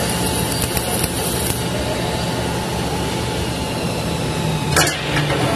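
Dual-shield flux-cored arc welding crackling and hissing, stopping about a second and a half in, then a steady shop drone with a sharp clink near the end.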